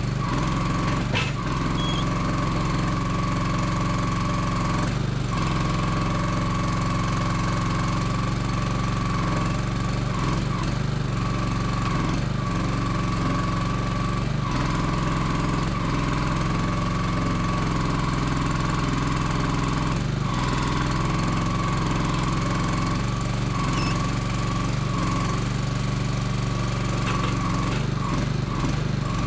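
Small engine driving a Kranman log loader's hydraulics, running steadily under a constant high whine, with occasional knocks as the crane and grapple work the logs.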